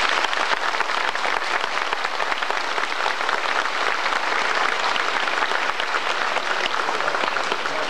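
Large audience applauding steadily at the close of a speech.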